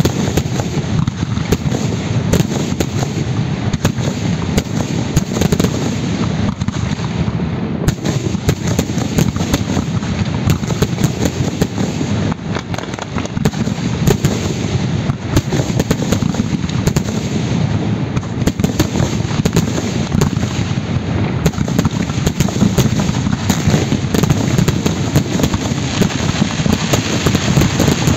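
Aerial fireworks display in a dense barrage: a rapid, unbroken run of bangs and crackling from bursting shells.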